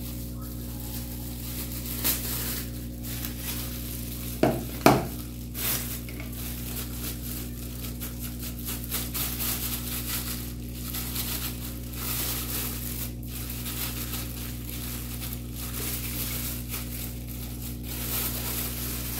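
Knife and fork clicking and scraping on a plate, with a steady low electrical hum underneath and a couple of short louder squeaks about five seconds in.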